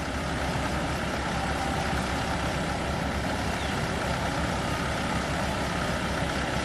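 A bus engine idling steadily.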